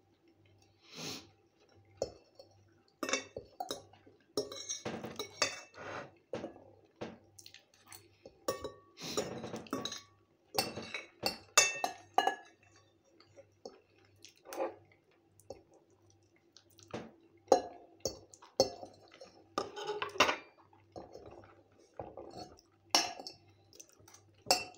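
Metal fork scraping and clinking against a ceramic plate in short, irregular strokes as food is gathered up and eaten.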